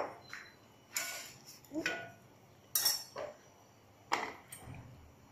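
Metal kitchen utensils clinking and knocking, about six separate knocks, a few with a short metallic ring: a spoon being handled against metal ware while ghee is readied for the paratha.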